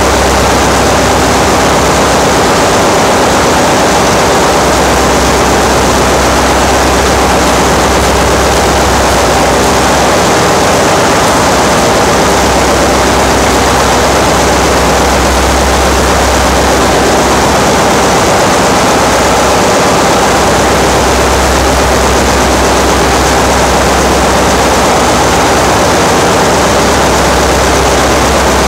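Loud, steady machinery noise of a ship's engine room, with a low hum underneath that holds on without a break.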